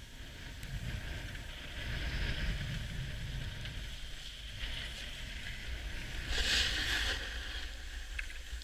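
Burton Canyon snowboard hissing and scraping over packed snow while being towed up a surface lift, over a low rumble. A louder scrape comes briefly about two-thirds of the way through.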